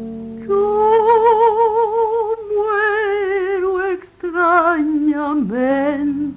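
A woman's voice singing long held notes with a wide vibrato, no words made out, the pitch dipping and rising again near the end; acoustic guitar is heard at the very start.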